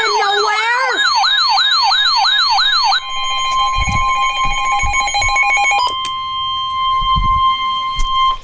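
Emergency Alert System alert tones announcing a weather warning. For about three seconds a siren-like tone rises and falls about three times a second. Then come rapidly pulsing steady electronic tones, and from about six seconds in one long steady tone that cuts off at the end.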